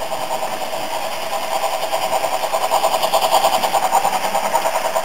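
Märklin model of the DB class 10 steam locomotive, its digital sound decoder playing rapid steam chuffing through a small onboard speaker. The chuffing grows louder as the locomotive passes, loudest around three to four seconds in.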